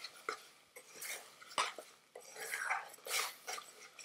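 Metal spoon stirring and scraping thick curry gravy around an aluminium pan, with irregular clicks and knocks of the spoon against the pan. The scraping works the caramelised gravy off the pan's bottom back into the curry.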